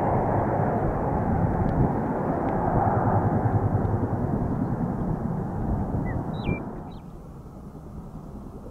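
A large airplane's engines running as it passes, a steady rushing rumble that fades away about seven seconds in. A bird chirps faintly near the end.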